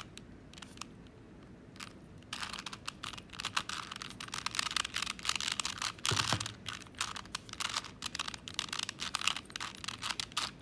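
4x4 Rubik's Cube being turned in the hands: a rapid run of plastic clicks and rattles as its layers are twisted through a solving algorithm. There is a quieter start before the turning picks up, and a duller knock about six seconds in.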